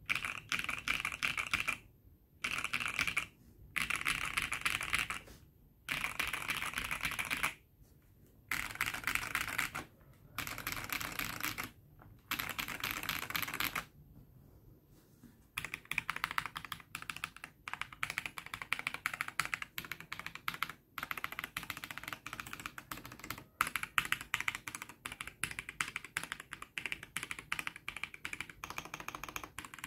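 Typing on a Keychron V6 Max mechanical keyboard with prelubed Akko Cream Blue Pro V3 switches and MDA-profile keycaps. The first half is fast runs of keystrokes, each about a second long with short pauses between. From about halfway the typing is steady and unbroken.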